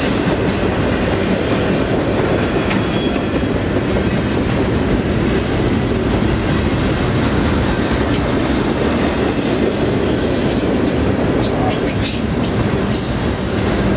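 Double-stack container well cars rolling past: a steady rumble of steel wheels on rail, with a cluster of sharp clicks from about ten seconds in.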